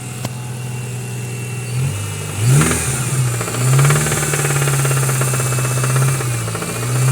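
Honda Accord CC7's four-cylinder engine idling, then revved up briefly, revved again and held higher for a few seconds, and revved once more near the end, with a knocking from the engine. The knock is the engine trouble the owner is presenting.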